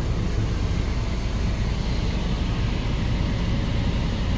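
Steady low drone of a semi-truck idling, heard from inside the sleeper cab.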